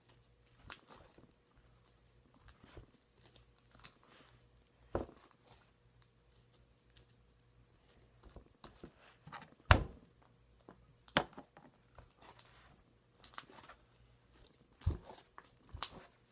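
Hands kneading and stretching a thick, sticky butter slime: irregular wet pops and crackles, a few sharper snaps, the loudest about ten seconds in.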